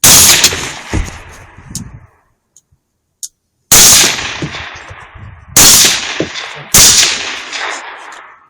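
Four rifle shots at wild hogs: one right at the start and three more close together from about four to seven seconds in, each trailing off in a long rolling echo.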